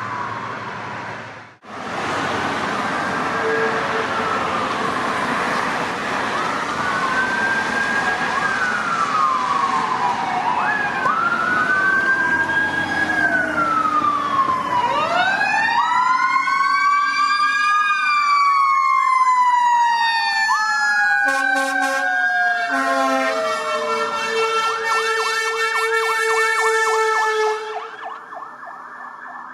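Electronic sirens of responding fire apparatus and an ambulance wail and yelp, sweeping up and down in pitch. From about halfway through, several sirens overlap, with short horn blasts among them, until the sound drops off near the end.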